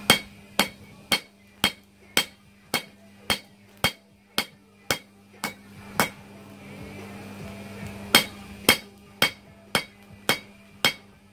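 Hand hammer striking a hot knife blade on the edge of a steel anvil: sharp, ringing blows at an even pace of about two a second, stopping for about two seconds midway, then resuming.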